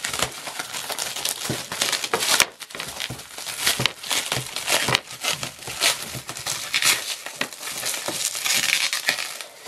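Loud, irregular crinkling of plastic packaging wrap as it is handled and pulled at to free a boxed computer part.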